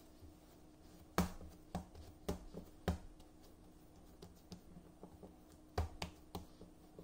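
Bread dough kneaded by hand on a wooden board: soft thumps and slaps as the dough is pressed and turned. Four come about half a second apart starting about a second in, the first the loudest, then three quicker ones near the end.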